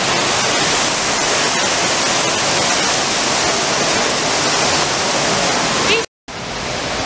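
Water falling down an artificial rock-wall waterfall, a steady hiss of splashing spray. It breaks off briefly about six seconds in and comes back a little softer.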